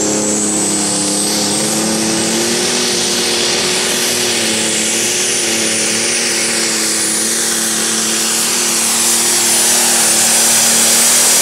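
John Deere 4320 pro stock pulling tractor's turbocharged diesel engine running flat out under full load while dragging the sled, with a high steady whine over the engine note. It gets a little louder toward the end.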